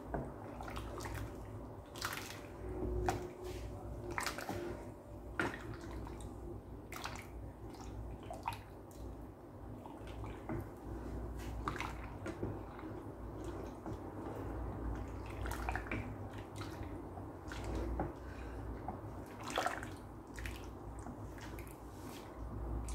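Wooden spatula stirring a thin liquid gelatin mixture in a rice cooker's metal inner pot: liquid sloshing, with irregular sharp scrapes and knocks of the spatula against the pot.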